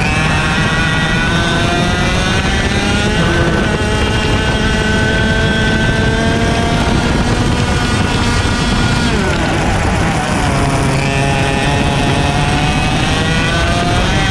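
IAME X30 125cc two-stroke kart engine heard from on board at racing speed: its pitch climbs as it pulls out of corners, drops sharply about nine seconds in as it comes off the throttle for a turn, then climbs again.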